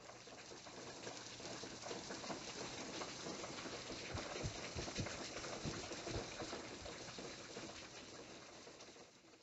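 Steady rain patter, fading in at the start and out near the end, with a few heavier drops about halfway through.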